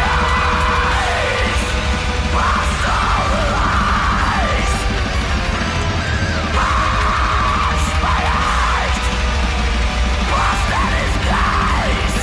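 Heavy metal song with harsh yelled vocals over a dense, loud band backing.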